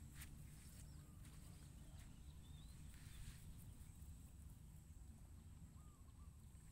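Near silence: faint outdoor ambience with a low rumble, a steady faint high tone, and a few faint clicks and small chirps.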